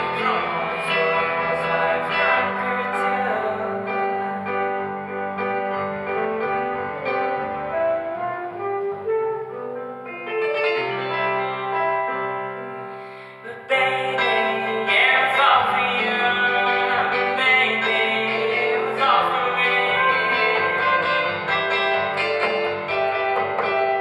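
A small acoustic ensemble plays live, with violin, trumpet, saxophone, double bass and keyboard in sustained, overlapping lines. The texture thins and softens about ten seconds in, then the full group comes back in abruptly at about fourteen seconds.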